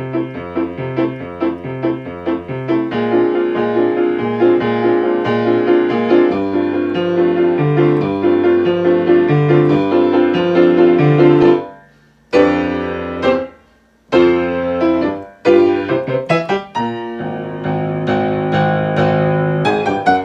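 1972 Yamaha G3 grand piano playing a brisk accompaniment at about 144 beats a minute. About twelve seconds in, the running playing breaks into separate chords with short silences between them, leading to the piece's closing chords. The piano is old and worn: the owner says its keys return unevenly, so right-hand chords come out slightly out of step.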